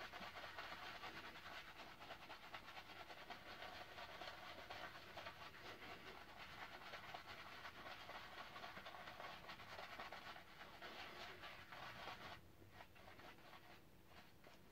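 Shaving brush swirling wet shaving-soap lather on the face: a faint, steady, wet squishing and crackling of bristles and foam. It grows quieter for the last couple of seconds.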